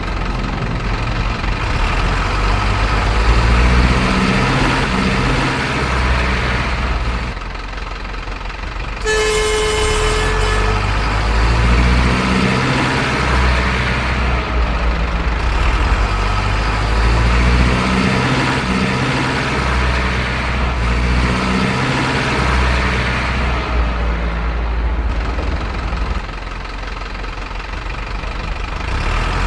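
Heavy diesel truck engine sound running and revving up and down, with one horn blast of about two seconds roughly nine seconds in.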